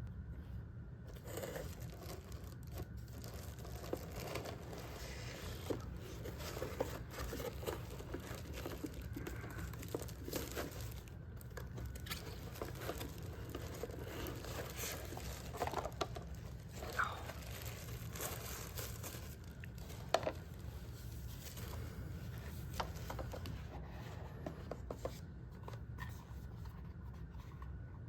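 Unboxing packaging being handled: continuous crinkling and tearing rustles of wrapping, with scattered light clicks and one sharper click about twenty seconds in, over a steady low hum.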